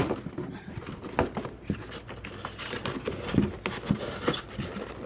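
Irregular knocks, scrapes and squeaks of styrofoam packaging as a toy RC helicopter jammed in it is tugged at.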